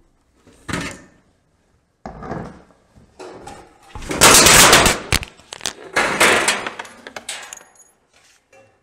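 Painted sheet-steel roofing panels being handled and flexed, with rattling and clattering of thin metal, picked up by a clip-on microphone lying on the sheet. Short clanks about one and two seconds in, then loud rattling from about four to seven and a half seconds.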